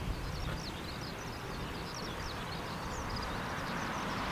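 Jet engine noise from a Boeing 747-8F's four GEnx engines as it flies away on its landing approach, swelling a little near the end, with many birds chirping high above it.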